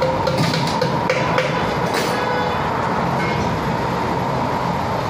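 Steady mechanical shop noise with a faint high whine, and a few sharp clicks and knocks in the first two seconds as a tire is worked onto its steel rim.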